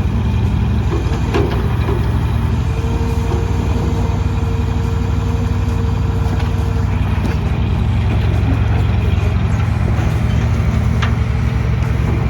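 A truck engine running steadily at low revs, a deep, even rumble with a couple of brief clicks.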